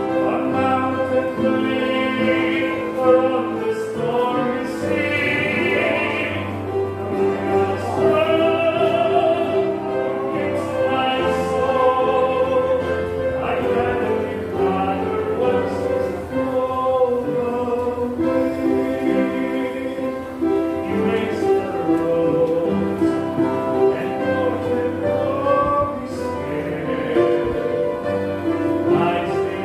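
Voices singing a hymn to upright piano accompaniment, with long held notes.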